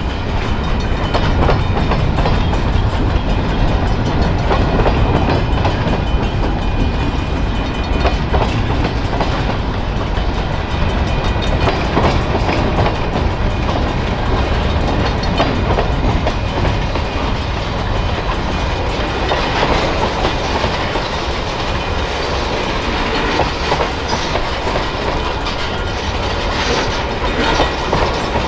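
Freight train of covered hoppers and tank cars rolling past, a steady rumble with the wheels clacking over rail joints.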